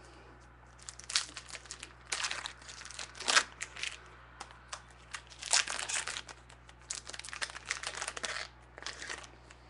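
Plastic wrapper of a trading-card pack being torn open and crinkled, in a run of irregular crackly rustles.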